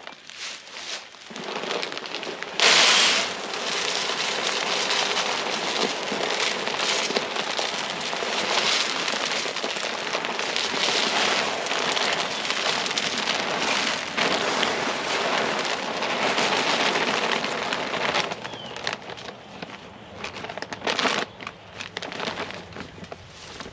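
Shelled corn poured from a bag into a tripod deer feeder's hopper: a steady rush of kernels that starts suddenly about three seconds in and runs for some fifteen seconds, then gives way to scattered crackles and rustles.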